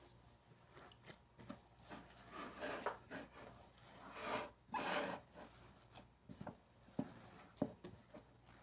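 Hands kneading pão de queijo dough in a glass bowl: faint rubbing and scraping that swells twice, with a few sharp taps near the end.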